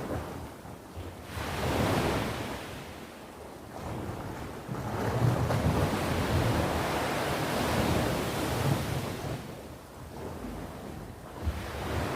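Ocean waves breaking and washing on the shore in a rising and falling surf: one surge about two seconds in and a longer one from about five to nine seconds, with wind buffeting the microphone.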